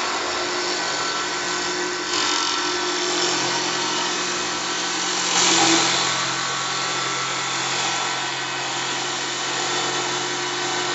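CNC wood lathe turning a wooden blank: a steady motor hum under the hiss of the cutter taking wood off, which gets louder and brighter for a moment about halfway through.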